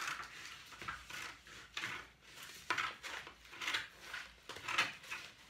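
Small children's scissors snipping through yellow paper, about one short cut a second.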